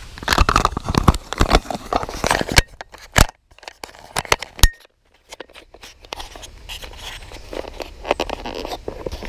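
Handling noise on the camera's microphone as the camera is fitted into a head mount: irregular rubbing, scraping and sharp knocks. About three seconds in it drops almost to silence for a couple of seconds, broken by two sharp clicks, then the rubbing resumes.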